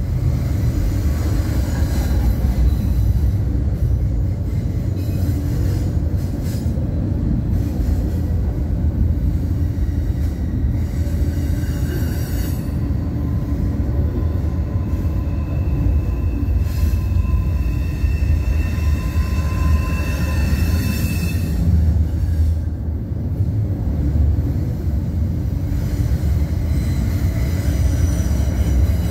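Double-stack intermodal container well cars rolling past: a steady low rumble of steel wheels on rails. Past the middle a thin, high wheel squeal holds for several seconds.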